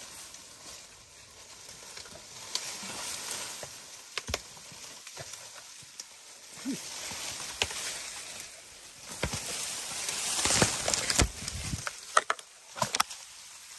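Leaves and branches rustling and twigs snapping as an African elephant tugs and shakes a small tree to pull it up by the roots. The rustling swells near the end, with several sharp cracks.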